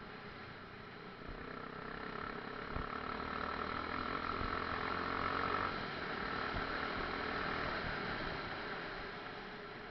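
Enduro motorcycle engine running, getting louder to a peak around the middle and then fading away.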